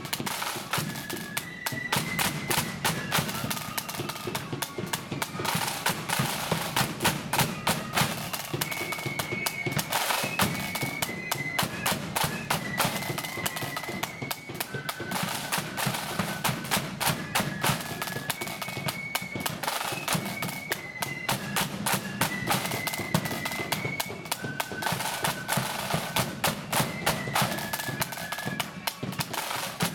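Marching flute band playing a march: flutes carry a tune in held high notes over snare drums and a bass drum, the drumming steady and dense throughout.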